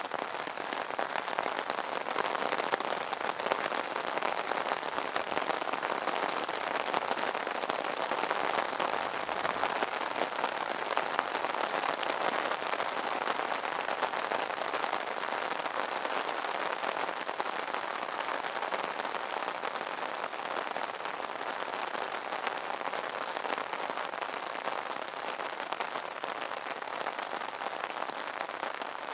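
Steady rain falling on an umbrella: a dense, even hiss made of countless small drop hits, with no let-up.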